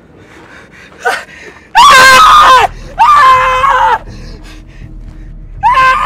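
Shrill screams of terror: a short rising cry about a second in, then two long, loud, high-pitched screams, and another starting near the end.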